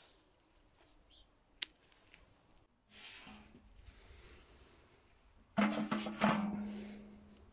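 A metal bucket clanking several times as it is gripped and moved, its body ringing on with a low hum that slowly fades. Before that, only faint rustling and one sharp click.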